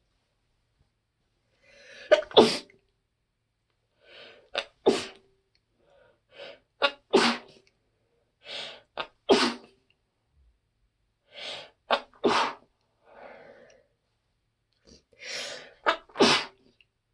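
A woman's muffled, stifled sneezes: a run of about six, each with a quick catching breath just before it, about every two to three seconds. They are allergy sneezes, brought on by going without her allergy medicine.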